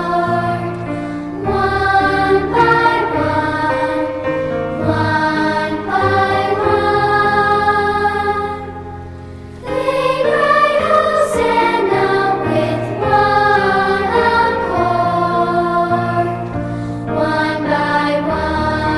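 Choir singing a sacred song, with a short pause between phrases about nine seconds in before the singing resumes.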